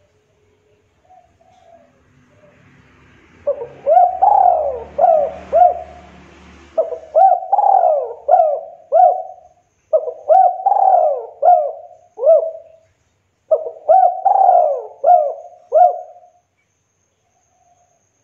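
Spotted dove cooing in four repeated phrases, each of several rising-and-falling coos, starting a few seconds in and ending a couple of seconds before the end.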